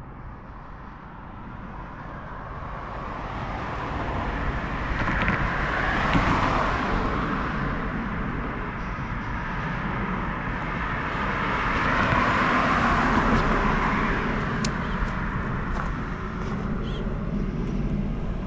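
Road traffic: cars passing on a street, their engine and tyre noise swelling and fading, loudest about six seconds in and again around twelve to thirteen seconds in.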